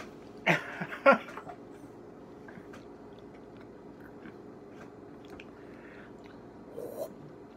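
A man's two short, loud vocal outbursts about half a second apart, around half a second and a second in, as he reacts to the burn of a quarter cup of hot sauce he has just swallowed; then a few faint clicks and a brief low groan near the end.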